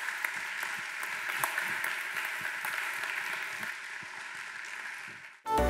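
Audience applauding steadily. Near the end the applause cuts off and electronic music starts.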